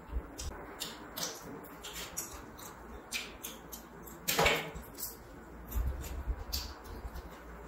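Close-miked eating sounds: wet chewing and lip-smacking clicks from eating rice and curry by hand. About halfway through there is a louder clatter as a steel curry bowl is handled.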